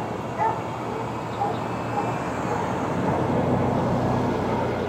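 Dogs barking: one loud bark about half a second in, then fainter, spaced barks. Under them runs a steady low rumble that grows louder past the middle.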